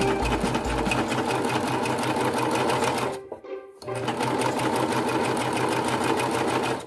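Serger (overlock machine) running fast, stitching a test piece of fabric on its newly replaced feed dog. It stops for about half a second around three seconds in, then runs on.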